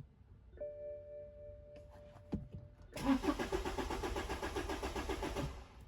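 BMW E91 320d's four-cylinder diesel being cranked on the starter motor for about two and a half seconds without catching: a crank-no-start after a replacement DDE engine computer was fitted, with the CAS/DDE sync error still present. A faint steady electrical tone comes before the cranking.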